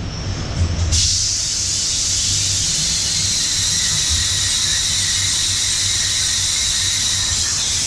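Okuma MU-10000H five-axis horizontal machining center milling metal: a steady, high-pitched cutting squeal starts abruptly about a second in, over hiss and a low machine hum.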